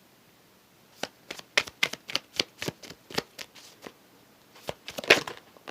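Tarot cards being shuffled and handled: a run of crisp card snaps, about four a second, starting about a second in, then a short denser flurry near the end.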